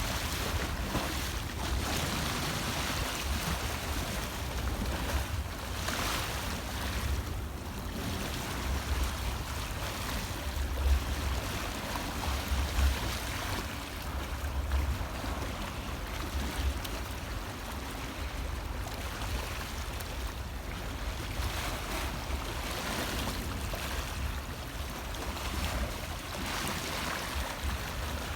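Sea waves washing onto the shore, the surf rising and falling in swells, with a gusty low rumble of wind on the microphone.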